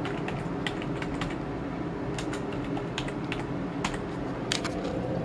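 Computer keyboard keys clicking as a short comment is typed: about a dozen irregular keystrokes over a steady low hum.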